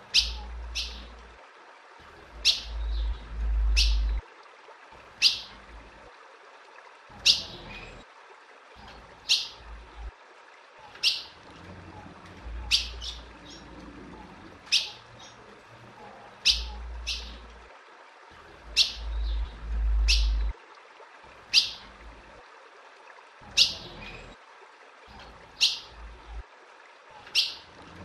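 Female azulão (ultramarine grosbeak) calling over and over: single short, sharp high chirps about every one and a half to two seconds. A low rumble comes and goes beneath the calls.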